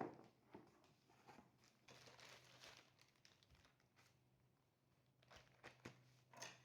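Faint rustling and crinkling of packaging being handled during an unboxing, with a few light clicks and knocks, the loudest near the end.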